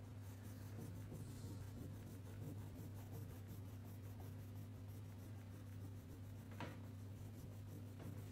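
Faint rapid back-and-forth coloring strokes scratching on paper, over a steady low hum, with one sharp tick about two-thirds of the way in.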